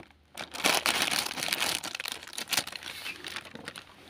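Plastic snack packet crinkling as it is handled and opened, an irregular crackle that starts about half a second in.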